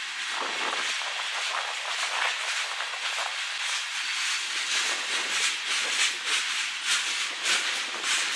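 Freight cars (covered hoppers and tank cars) rolling past, their steel wheels making a steady rushing noise on the rails. From about halfway through, sharp clicks come roughly twice a second as the wheels pass over rail joints.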